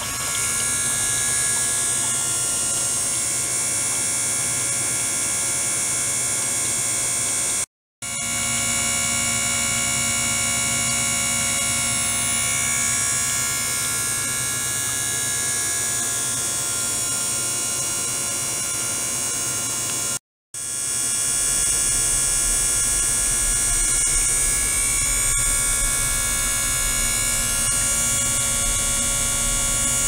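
Small liquid-circulation pump running with a steady, buzzing hum of many steady tones. The sound cuts out completely for a moment twice, about 8 and 20 seconds in, and a deeper hum joins soon after the second break.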